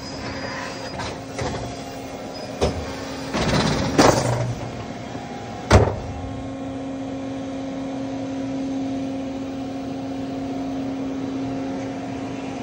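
Lockheed F-104S main landing gear extending on hydraulic power in uneven steps, with rushing hydraulic noise and clunks, then a sharp clunk about six seconds in as the gear reaches the end of its travel; a steady hum runs underneath. The uneven movement comes from reduced hydraulic flow from a ground hydraulic mule.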